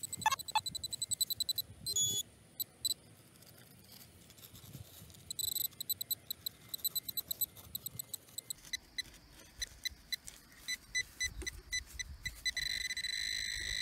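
Metal detecting pinpointer beeping in rapid pulses as it is probed in a dug hole, with pauses between bursts; near the end the pulses run together into a steady tone as it closes in on a coin.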